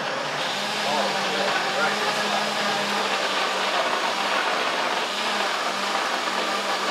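Nutribullet Smart Touch countertop blender running steadily, its motor spinning the blade through a smoothie in the pitcher jar, with a steady low hum under the whirring.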